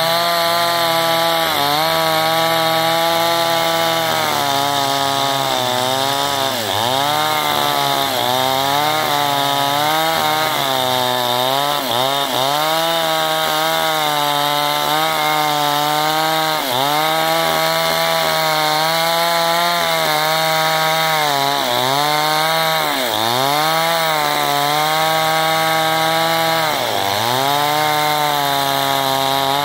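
A two-stroke chainsaw runs at full throttle, ripping lengthwise through a log of very hard wood. The engine pitch dips briefly and recovers every couple of seconds as the chain works through the cut.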